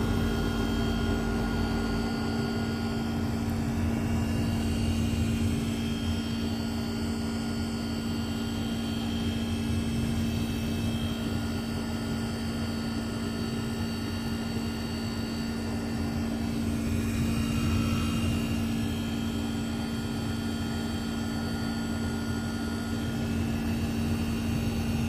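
Samsung inverter air conditioner running: a steady, even machine hum with a constant low tone and a rushing noise.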